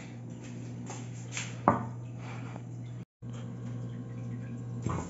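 Steady low electrical hum in a small room, with a light tap and then a sharper knock about a second and a half in. The sound cuts out completely for a moment about three seconds in.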